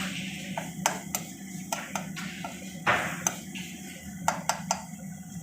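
A spatula or spoon clinking and scraping against a cooking pan while the masala is stirred: about a dozen sharp, irregular clinks over a steady low hum.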